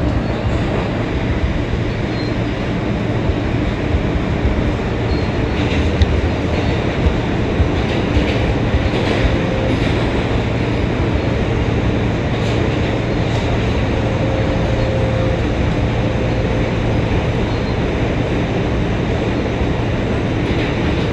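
Inside an R160B subway car with Siemens propulsion running at speed through a tunnel: a steady, heavy rumble of wheels on rail. A few sharp clicks come over the track between about six and fourteen seconds in.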